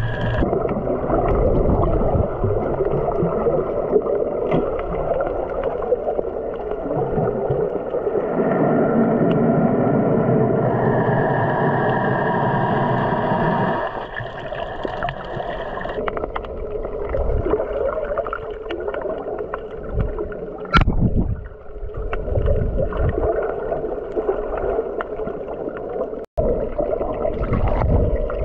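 Underwater sound picked up by a submerged camera: a muffled, continuous watery rush with a steady hum, broken by one short sharp sound a little past the middle.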